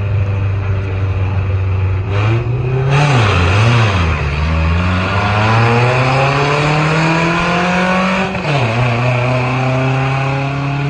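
Drag-race launch of a red pickup truck and a van: engines held steady at the line, then accelerating hard down the strip with the engine note climbing. The pitch drops sharply at a gear change about eight seconds in, then climbs again.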